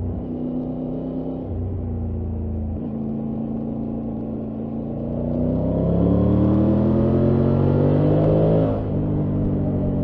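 Triumph Tiger 900 Rally Pro's three-cylinder engine pulling steadily, then revving up under acceleration from about halfway through, its note rising and getting louder. Near the end the revs drop sharply and settle lower.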